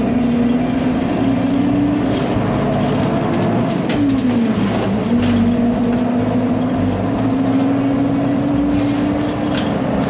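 Route bus engine running as the bus drives along the road, heard from inside the cabin as a steady drone. About four to five seconds in, the engine note dips and then climbs again.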